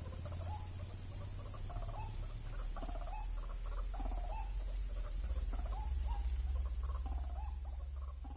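White-breasted waterhen (ruak-ruak) calling, a run of short wavy calls repeated about once a second, over a steady high-pitched hiss and a low rumble.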